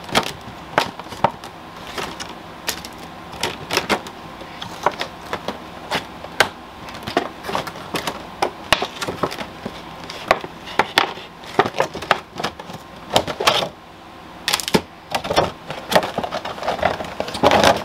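Hard plastic clamshell packaging being wrestled with and cut at, giving a long run of irregular clicks, crackles and snaps.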